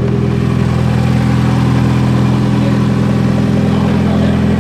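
Mitsubishi Lancer Evolution IX's turbocharged 4G63 four-cylinder engine idling steadily, started right after an oil change.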